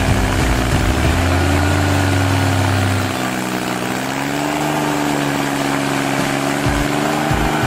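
SP7015 self-propelled stump grinder running under load as its cutter wheel grinds into a tree stump. The engine note sags and recovers as the wheel is swept across the wood, and a heavy low rumble eases about three seconds in.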